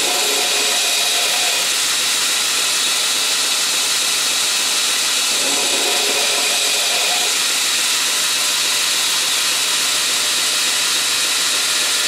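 2x72 belt grinder running with a steady hiss as the edge of a titanium frame-lock folding knife is held against the belt on the work rest and ground to profile it. A faint grinding tone swells twice, about a second in and again around six seconds, as the piece moves along the belt.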